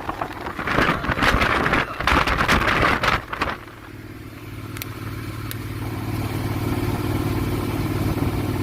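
Wind buffeting the microphone in irregular gusts for about three and a half seconds, then dropping away abruptly. Behind it the steady drone of a Honda Forza 750's parallel-twin engine at a constant cruising speed comes through, slowly growing louder, with two faint clicks near the middle.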